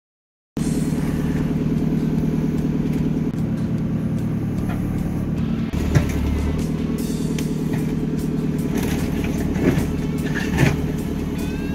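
Diesel engine of a JCB 3CX backhoe loader running, heard from inside the cab, under music with a steady beat, with a few sharp knocks.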